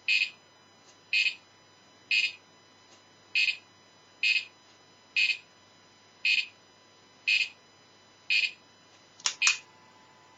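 A light-sensitive electronic cricket kit chirps through its small speaker in the dark. It gives short, high-pitched electronic chirps about once a second, then two quick chirps close together near the end.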